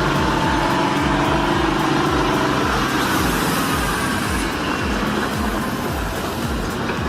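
Logging truck engine running steadily under load, with a whine that rises and then falls in pitch around the middle.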